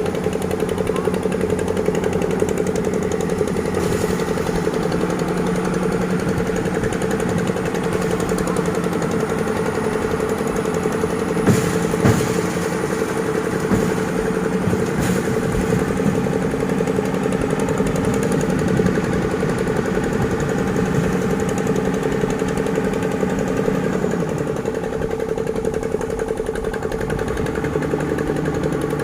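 Heavy diesel machinery running steadily as an excavator loads sand into a dump truck, with a rattling engine note. A couple of sharp knocks about twelve seconds in and lighter ones a few seconds later; the engine's pitch shifts near the end.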